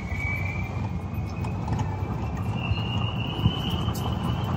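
Tesla taxi under way, heard from inside the cabin: a steady low road rumble with a faint high whine that climbs slowly in pitch.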